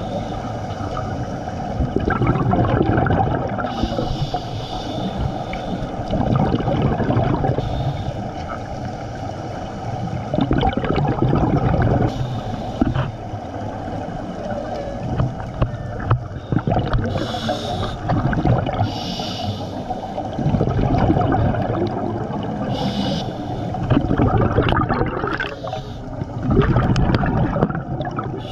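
Scuba divers breathing underwater through regulators, heard on an underwater camera: exhaled bubble streams swelling and fading every few seconds, with short hissing breaths in between.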